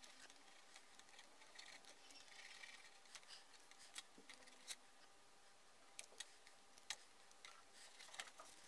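Near silence with faint scratching of a ballpoint pen tracing an outline on a plastic jug, and scattered light clicks and taps from the hands handling the jug.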